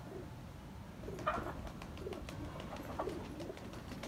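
A flock of domestic pigeons cooing softly and steadily, with a few short sharp clicks among the coos.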